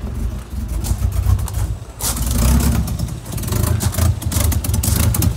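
Nissan Skyline R33's RB25DET turbocharged straight-six, fitted with a bigger turbo, idling with an uneven low rumble and sharp puffs and ticks that make it sound like a tractor, which the owner takes for an exhaust leak. It gets louder and hissier about two seconds in.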